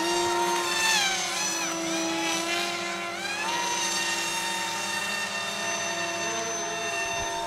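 High whine of the electric motors of radio-controlled models, several at once: one holds a steady pitch while others slide up and down as the throttle is worked.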